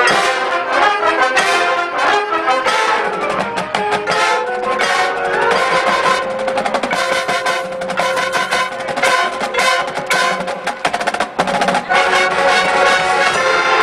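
High school marching band playing: brass section (trumpets and trombones) sounding chords over drumline percussion. The drum hits are densest through the middle, and held brass chords return near the end.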